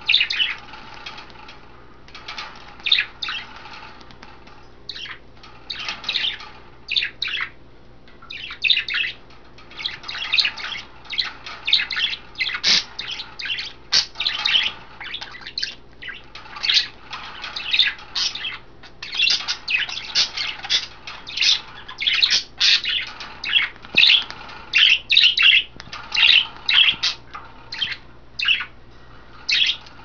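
Budgies chirping and squawking in quick, rapid bursts, mixed with wings fluttering and splashing as a budgie bathes in a water dish.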